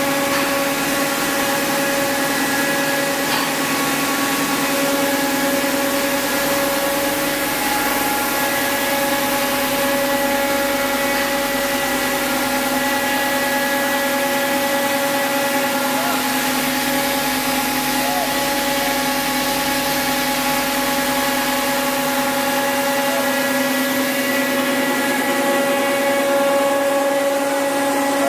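HQ-90 single-screw plastic pelletizing line running: a steady machine drone with several steady whining tones, from the extruder and the ring blowers that carry and dry the pellets.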